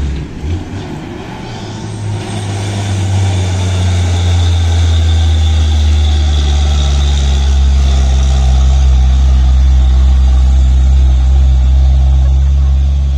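Tanker truck's diesel engine pulling hard up a steep climb: a deep, steady drone that grows louder as the truck passes close, loudest a little past the middle, then starting to fade as it moves away.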